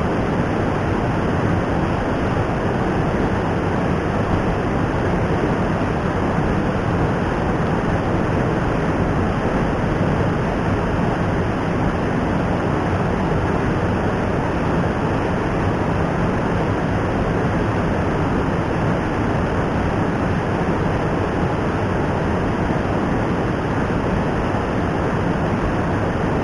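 Steady rush of fast river water pouring over a small concrete weir, an even, unbroken noise.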